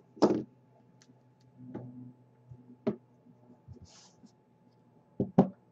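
Trading cards being handled on a desk: a few scattered clicks and taps of card against card and table, after a brief louder sound at the very start.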